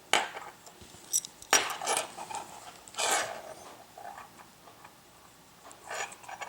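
Metal clinking and scraping of an American 1100 series padlock's plug being pushed out of its body with a socket standing in for a plug follower. There are several sharp clinks and short scrapes, the loudest about a second and a half and three seconds in, with a last clink near the end.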